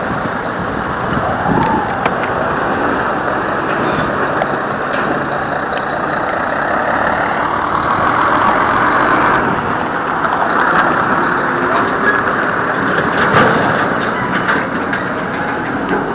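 Steady road traffic noise of vehicles and trucks going by, with small swells and a few brief knocks.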